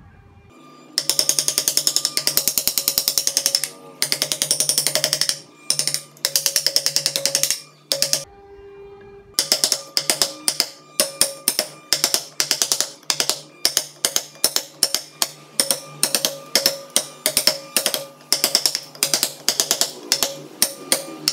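Hand chisel cutting into a wood block, a run of quick sharp clicks, then short bursts, then regular sharp strokes about two to three a second from about nine seconds in.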